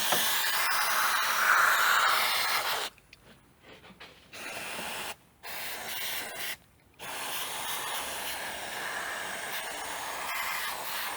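Aerosol can of silicone lubricant spraying onto a VAZ-2109's upper strut mount: one long hiss, then after a pause three more hisses, the last one long. The lubricant is applied to test whether the squeak on turning the steering comes from the upper strut mount.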